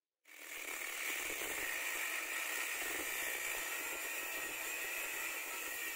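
Angle grinder with its disc cutting into the threaded steel end of a lathe spindle shaft, a steady hissing grind. It comes in within the first second and holds even.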